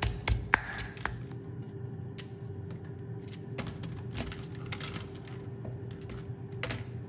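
A wooden pestle pounding herbs in a stone mortar, a few sharp knocks in the first second. Then scattered light clicks and taps as a knife and a green gourd are handled in a plastic colander, over a faint steady hum.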